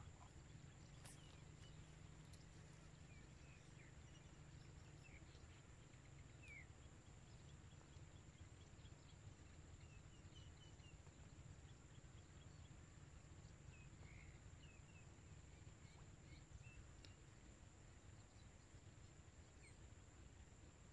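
Near silence: faint open-air ambience with a low steady rumble, a thin steady high whine, and scattered short faint chirps.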